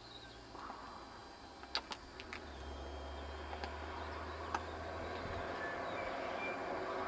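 A road vehicle approaching, its noise growing steadily louder, with a few sharp clicks about two seconds in.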